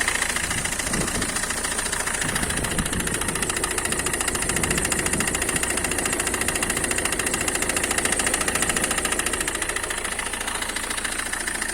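Citroën C5 2.0 HDi diesel engine idling steadily with a knock from around the right front wheel, which the mechanic puts down to a failing crankshaft damper pulley, not the high-pressure fuel pump.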